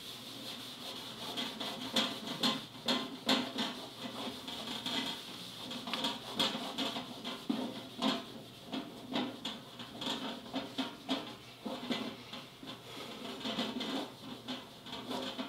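Handheld whiteboard eraser rubbing across a whiteboard, wiping off marker writing in an irregular run of scrubbing strokes.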